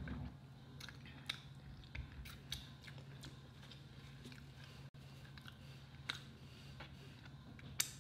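Quiet chewing of food, with scattered sharp mouth clicks.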